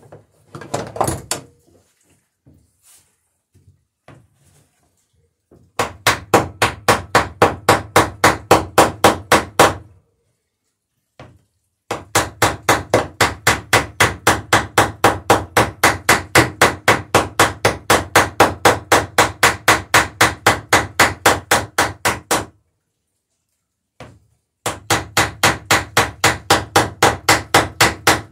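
A hammer peening over the rivets in the lapped planks of a wooden dory hull: three long runs of rapid, even blows, about five a second, with short pauses between runs.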